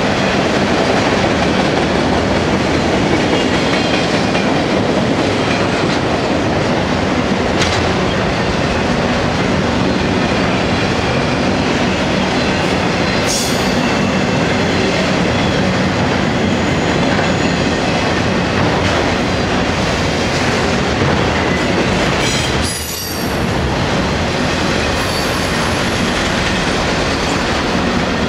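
Autorack freight cars rolling past at speed: a steady rumble and clatter of steel wheels on rail, with a few brief high wheel squeals.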